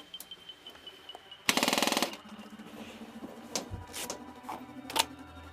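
Airsoft gun firing a rapid full-auto burst of about half a second, followed by four single sharp cracks spaced about half a second apart.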